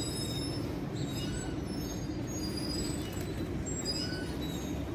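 Steady low rumble of city traffic, with short high chirps scattered throughout.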